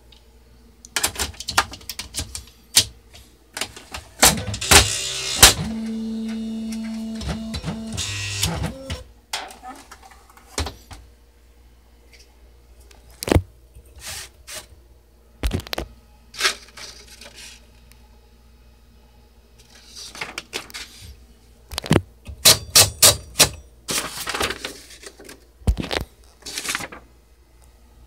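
Smith Corona PWP 3 electronic typewriter mechanism working: irregular sharp clicks and knocks, with a motor running steadily for about three seconds a few seconds in, and a quick run of clicks a little past twenty seconds.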